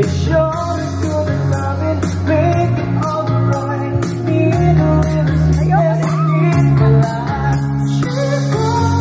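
A man singing into a microphone over amplified pop music with a steady beat and a sustained bass line, played through PA speakers.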